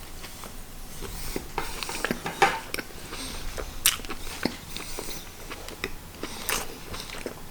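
A person chewing food close to the microphone, with scattered small clicks and soft wet sounds.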